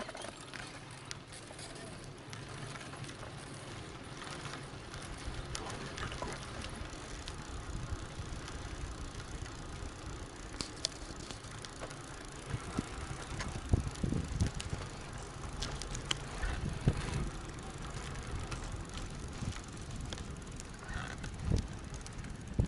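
KhVZ Start Shosse road bicycle rolling over asphalt: a steady rolling noise from the tyres and drivetrain, with irregular rattles and knocks over bumps that are strongest about halfway through and again near the end.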